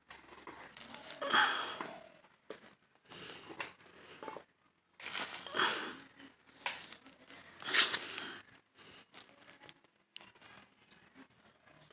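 Woven plastic sack rustling and crinkling in irregular bursts as a kitten scrambles and pounces on it, with a few louder crackles among quieter rustling.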